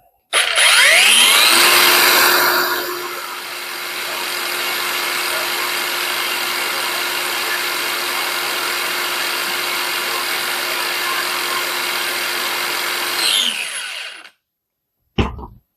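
Parkside Performance PPWSFA 20-LI A1 20 V brushless cordless angle grinder spun up with no load: a rising whine as it starts, a steady run with a constant tone, then a falling whine as it winds down and stops about 14 seconds in. Its loudness reads around 93 dB.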